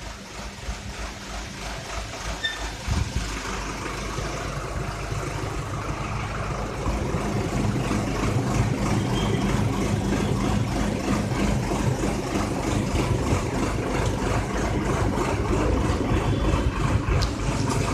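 Tractor's diesel engine running steadily, growing louder about seven seconds in.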